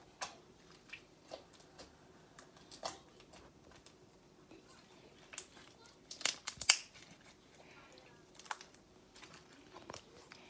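Slime being kneaded, pressed and stretched by hand against a stone countertop: irregular sticky clicks and pops, with a louder cluster of them about six seconds in.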